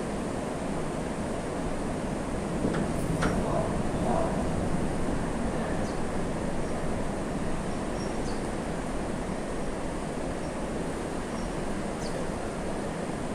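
River current rushing and churning past rocks, a steady wash of water noise, with a couple of faint clicks about three seconds in.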